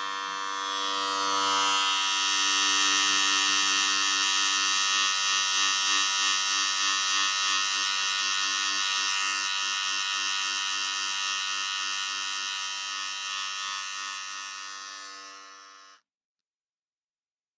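Electric hair clippers buzzing through a haircut: a steady electric hum with a hissy edge that gets louder a second or two in, wavers, fades toward the end and cuts off suddenly.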